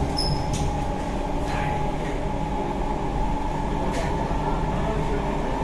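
Interior of a C151B MRT train running along the track: a steady rumble of the wheels and car with a steady whine over it and a few faint ticks.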